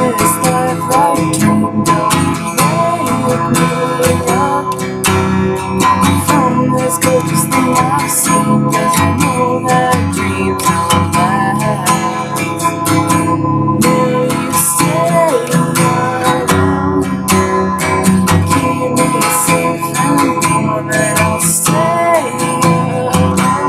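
Acoustic guitar strummed steadily in a song, with a voice singing along in places.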